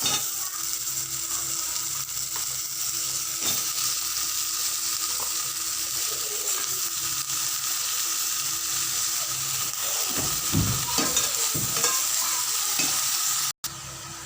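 Raw chicken pieces sizzling in hot oil and onion-tomato masala in a kadai, with a spoon stirring and scraping through it. The sound cuts out briefly near the end.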